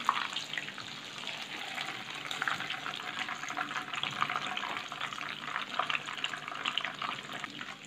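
Chicken-65-marinated chicken pieces sizzling in hot sunflower oil in a kadai, a steady hiss with many small crackles, as the fried pieces are lifted out with a wire skimmer.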